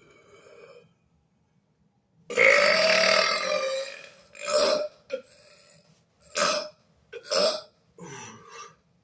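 A boy's long, loud, forced burp about two seconds in, lasting nearly two seconds, followed by several shorter bursts of burping.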